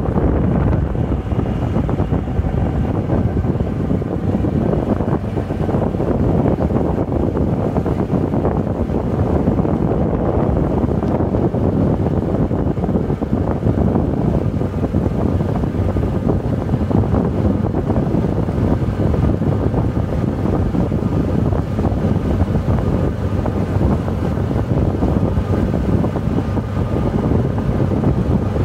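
Steady rumble of a moving golf cart on a freshly graded unpaved road, with wind buffeting the microphone.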